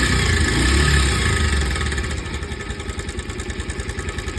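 Bajaj Pulsar 125's single-cylinder engine running, revved a little and then settling back to idle about two seconds in. It makes an odd noise that the mechanic traces to a worn timing chain, since the tensioner is fine.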